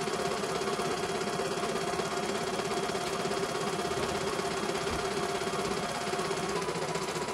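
CNY E900 computerized embroidery machine stitching steadily, its needle running at a fast, even rhythm over a constant motor hum.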